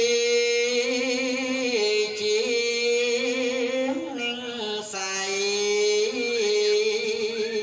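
A Buddhist monk chanting solo in a slow, melodic voice into a microphone, holding long wavering notes that step down in pitch about two and five seconds in.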